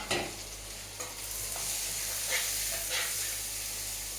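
Food frying in hot oil in a cooking pot, the sizzle growing louder about a second in, while a spoon stirs and knocks against the pot: two sharp knocks at the start and a couple of lighter clinks later.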